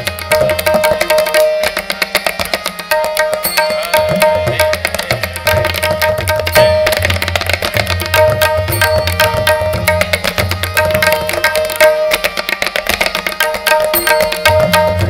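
Tabla played in a dense, fast stream of strokes, with deep resonant bass strokes from the bayan under the right-hand drum. A harmonium sustains a repeating melodic line beneath.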